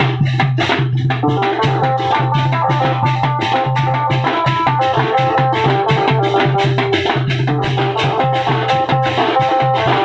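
Koraputia Desia band party playing: drums beaten in a fast, driving rhythm of about four or five strokes a second, with clashing hand cymbals, under a melody of held notes.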